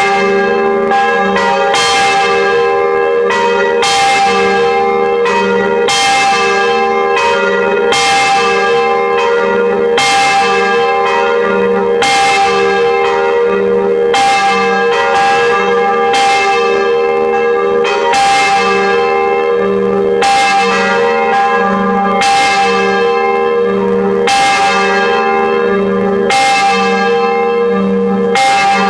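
Church bells pealing: several swinging bells struck in turn, about one stroke a second. Each stroke rings on and overlaps the next, so the sound is a continuous layered clang of several pitches.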